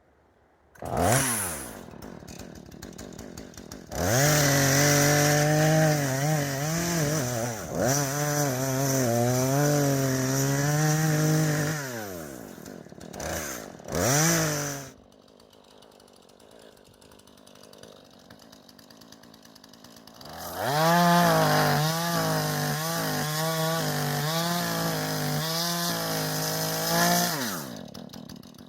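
Two-stroke chainsaw revved, then held at full throttle while cutting into a tree, its engine pitch dipping and wavering under load, in two long cuts with a quieter idle between them.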